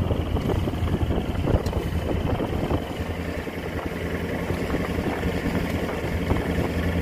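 Fishing boat's engine running steadily, a low hum with some wind-like noise over it.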